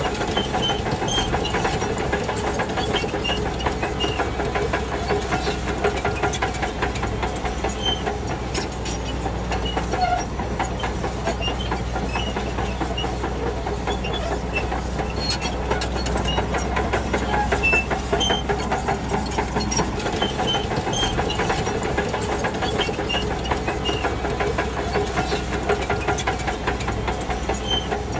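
Shantui DH17C2 crawler bulldozer at work: its diesel engine runs steadily under a constant rapid clatter of the steel tracks. The low engine drone eases about twenty seconds in.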